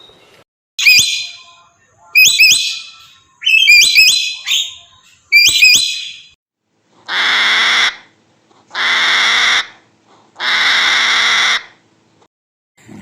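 A bird calling: four short, sharp, high calls over the first six seconds, then three long harsh calls of about a second each.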